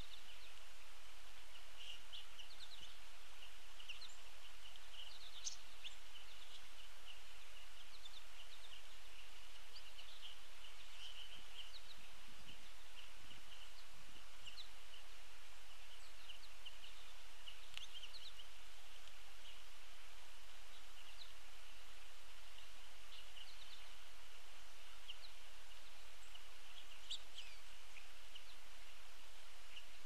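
A flock of American goldfinches twittering at a feeder: many short, high chirps run on without a break over a steady outdoor hiss.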